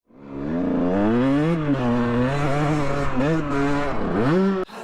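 Motorcycle engine revving, its pitch rising and falling several times, then cutting off sharply near the end.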